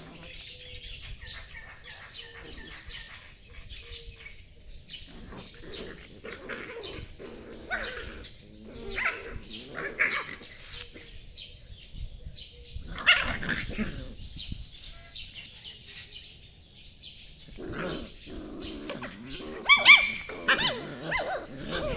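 Puppies play-fighting, giving short, high yips and yelps in bursts, loudest about 13 seconds in and again near the end.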